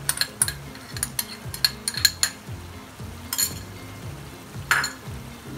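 A metal spoon clinks sharply against a non-stick wok several times in quick succession over the first two seconds as green chili paste is knocked off into the pan. A spatula then scrapes through frying chicken twice, with a low sizzle throughout.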